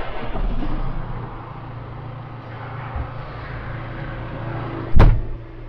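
A green John Deere loader tractor's diesel engine, heard from inside the cab, running fast right after starting, then settling to a steady idle within about a second and a half. A single loud knock comes about five seconds in.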